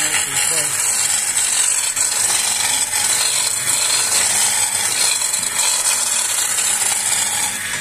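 Skew chisel cutting a spinning wooden walking-stick blank on a wood lathe, a steady hiss of shavings being sheared off, over the lathe's low steady hum. The cut stops just before the end.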